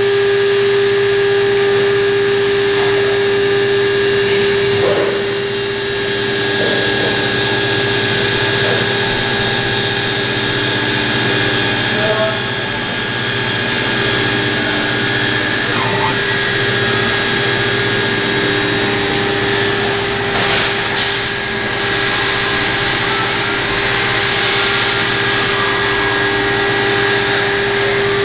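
1.5 kW water-cooled CNC router spindle running steadily with a constant high whine while its engraving bit mills copper traces into a PCB blank.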